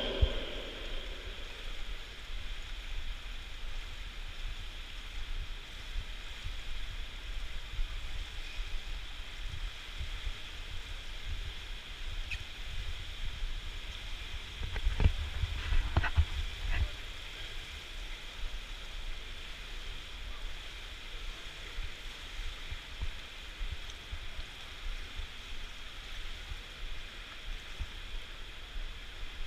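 Steady hiss and low rumble of an indoor swimming pool hall, with a few short knocks about halfway through.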